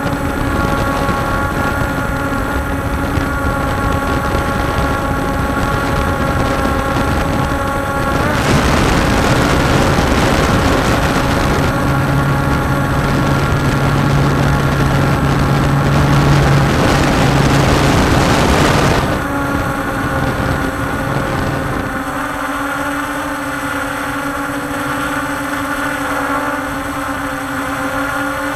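Walkera Scout X4 quadcopter's four brushless motors and propellers whining steadily in flight, picked up by the camera on the aircraft itself, several steady tones over a rushing hiss. From about eight seconds to about nineteen seconds a louder rushing noise covers the whine, then the steady tones come back clearly.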